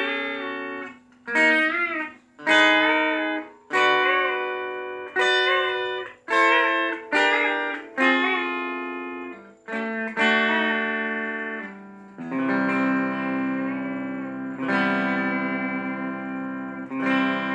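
Electric Telecaster-style guitar fitted with a B-bender: a run of picked notes and chords, many with a note bending up in pitch in pedal-steel style. From about two-thirds of the way in it plays longer chords left ringing.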